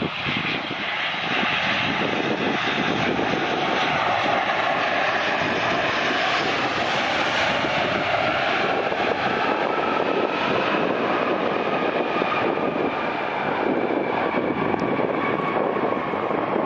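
Airbus A320-family jet airliner landing: the engine noise rises sharply right after touchdown and holds as a loud, steady rush with a whine while the jet rolls out down the runway.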